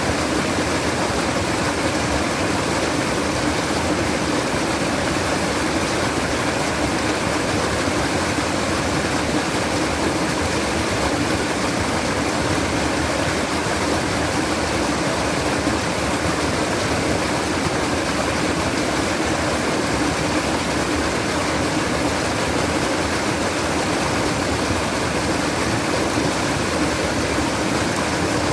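Babbling, trickling stream water running steadily and without a break.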